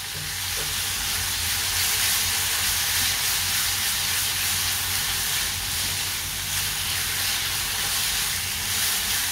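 Grated-apple sheera cooking in ghee in a nonstick wok, sizzling with a steady hiss while a silicone spatula stirs and scrapes it. A low hum runs underneath.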